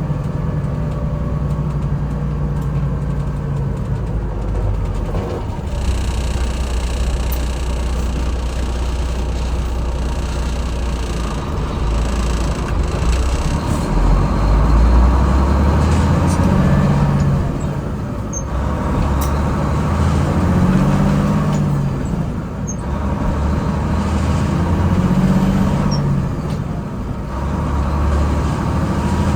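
GMC cab-over truck's engine running while driving, its note swelling and dropping several times in the second half, as when pulling up through the gears.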